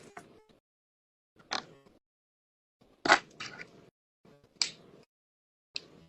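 Short bursts of clicks and crackles from small model pieces being handled and pressed together by hand. The bursts come about four times, roughly a second and a half apart.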